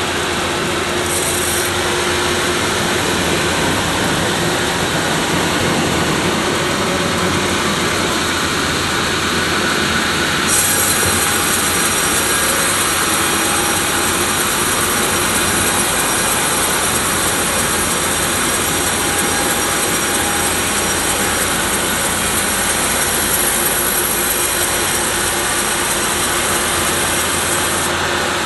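Sawmill bandsaw cutting through a sonokeling (Indian rosewood) log: a steady, dense sawing noise that turns brighter and hissier about ten seconds in and eases just before the end.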